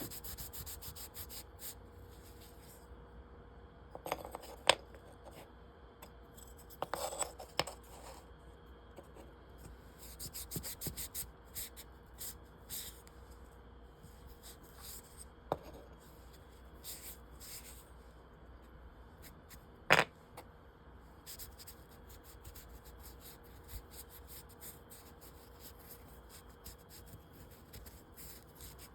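Damp rag rubbing and wiping small faux marble clock columns and bases in short, soft strokes, broken by a few sharp clicks and knocks. The loudest knock comes about twenty seconds in.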